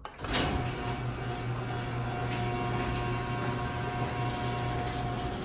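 An older Craftsman chain-drive garage door opener, over 20 years old, starting up with a click and then running steadily as it opens the door. Its motor gives a pretty loud, even hum.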